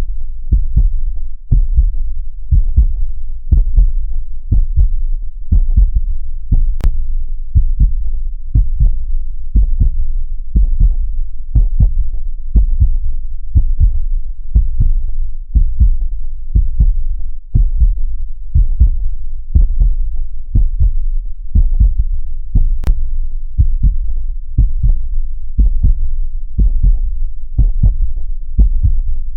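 Heartbeat sound beating in a steady, even rhythm of low thumps over a constant low rumble.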